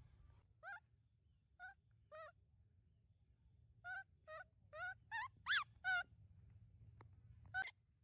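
Baby macaque calling: about ten short, wavering cries in irregular bursts, loudest a little past halfway.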